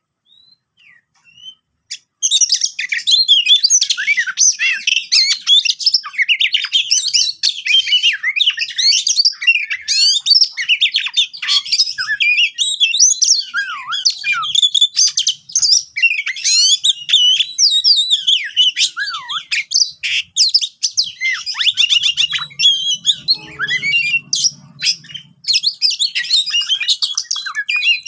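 Oriental magpie-robin (kacer) singing in full voice: a loud, fast, unbroken run of varied whistles, trills and sharp clicking notes, starting about two seconds in.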